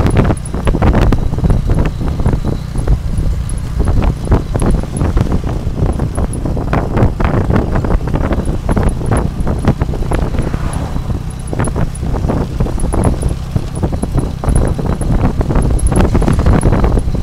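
Wind buffeting the microphone in irregular gusts over the steady low rumble of a moving tuk-tuk: its motorbike engine and tyres on the road.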